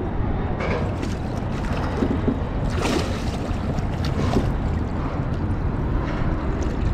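Wind buffeting the microphone, with a few bursts of splashing as a hooked leopard shark thrashes at the surface beside the boat; the biggest splash comes about three seconds in.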